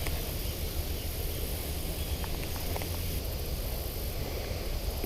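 Pondside outdoor ambience: a steady low rumble with a faint high insect hiss and a few faint, light ticks.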